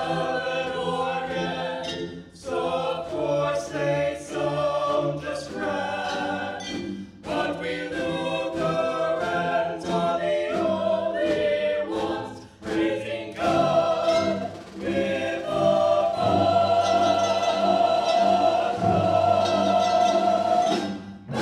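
Bottle band playing a tune by blowing across the mouths of glass bottles: breathy, organ-like chords and melody in short phrases, ending on a long held chord that stops just before the end.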